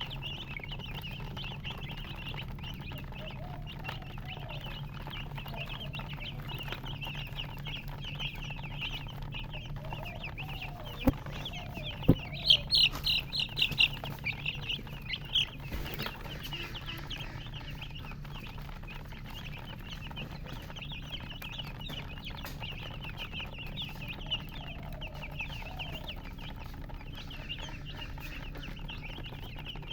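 Baby chicks peeping continuously in many short, high chirps, with a hen clucking softly now and then. A louder flurry of peeps and a couple of sharp knocks come about eleven to fourteen seconds in.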